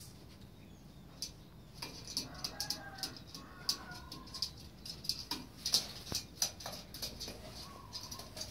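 Domestic pigeons cooing and flapping their wings on a wire cage, with many short sharp claps and clicks starting about a second or two in.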